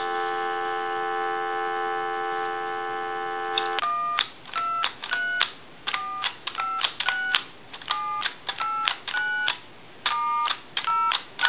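Telephone dial tone holds steady for about four seconds. It cuts off when a quick run of about a dozen touch-tone (DTMF) beeps begins, each keypress a short two-tone beep, as the repaired keypad of a Mickey Mouse telephone dials a number in a final check.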